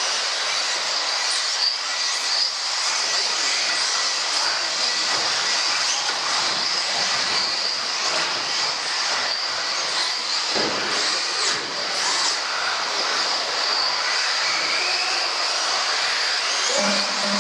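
Electric radio-controlled off-road cars running: a steady high-pitched motor whine over a hiss, with brief rises and falls in pitch as the throttle changes.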